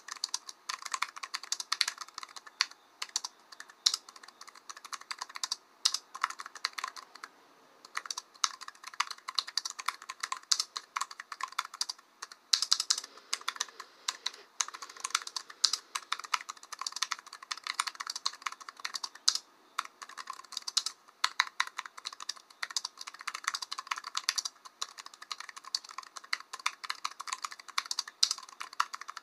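Fast typing on a computer keyboard, a rapid stream of key clicks broken by short pauses.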